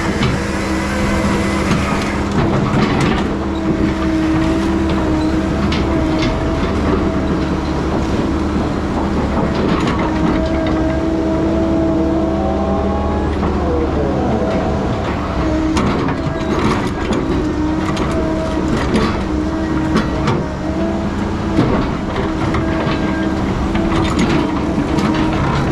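Heavy diesel logging machine running steadily under work, with repeated metal clanks and knocks; its engine note shifts briefly about halfway through.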